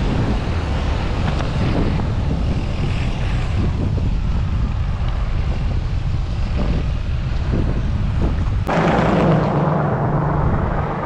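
Wind rushing over an action camera's microphone on a moving bicycle, a steady rough rush with heavy low rumble. Near the end it changes abruptly to a brighter rush with a steady low hum underneath.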